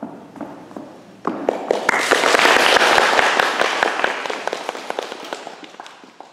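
Audience applauding: a dense patter of clapping that breaks out about a second in, swells, then thins and fades near the end. A single light knock just before it.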